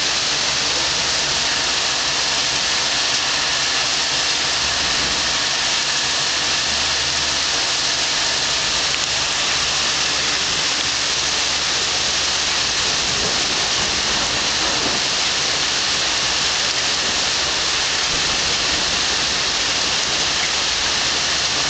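Heavy rain pouring steadily, with a low steady hum from an air conditioner unit running close by.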